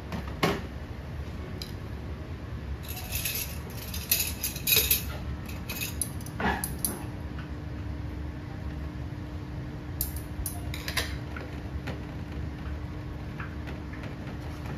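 Tableware being handled: dishes and utensils clinking and knocking in scattered clusters, over a low steady hum.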